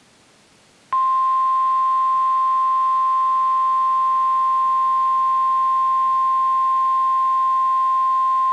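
NOAA Weather Radio 1050 Hz warning alarm tone: one loud, steady, unbroken beep that starts about a second in after faint radio hiss. It is the alert signal that a warning message is about to follow, here a tornado warning.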